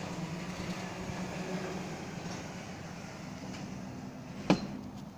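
Genie garage door opener motor running as the door rolls down its tracks, a steady hum and rumble. One sharp click about four and a half seconds in.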